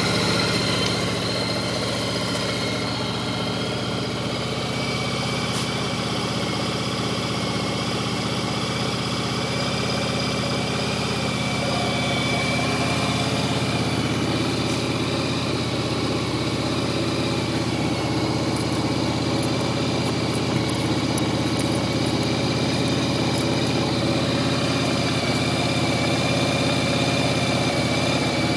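Yamaha Virago 1100's air-cooled V-twin engine idling steadily with a knocking sound.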